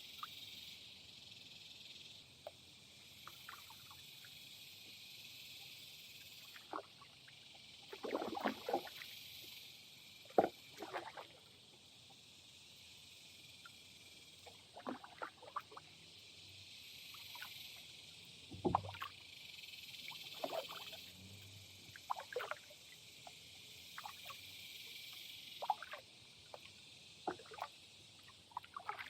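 Kayak paddling on a shallow creek: scattered knocks and splashes of the paddle against the plastic hull and the water. Under them runs a steady high-pitched hiss that swells and fades every few seconds.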